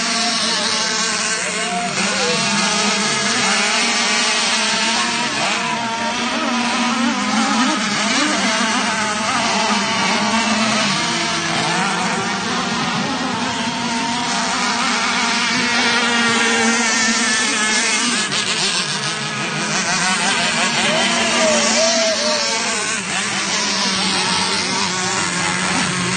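Several radio-controlled speedboats racing, their motors running together in several pitches that waver and glide up and down as the boats pass.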